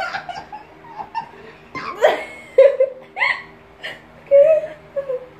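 Girls laughing and giggling in several short bursts.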